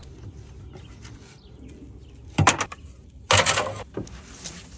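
Fabric decoration flapping in gusts of wind: two loud bursts of flapping, a short one about halfway through and a longer one just after, over a low steady rumble of wind.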